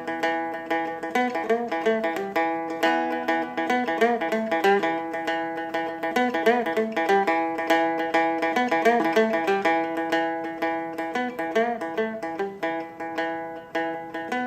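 Capoed Seagull Merlin, a four-string dulcimer-style fretted instrument, playing a picked riff in a steady run of quick, ringing notes. The third is struck twice rather than bent.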